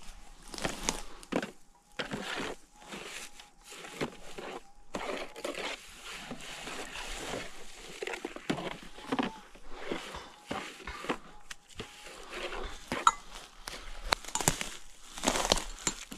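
Irregular crunching and scraping of rocks and gravel, with a few sharper clinks, under a faint steady tone.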